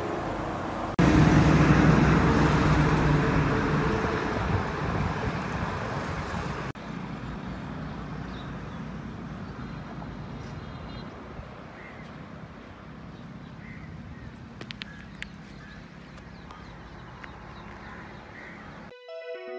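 Roadside ambience of traffic and wind noise on the microphone. It is loudest and fullest from about a second in to about a third of the way through, after which it drops abruptly to a quieter steady hum with a few short bird calls. Electronic music starts near the end.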